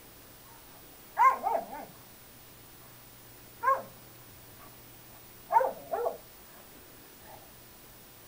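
Dog barking in play, in short bursts: three quick barks about a second in, a single bark near four seconds, and two more just before six seconds.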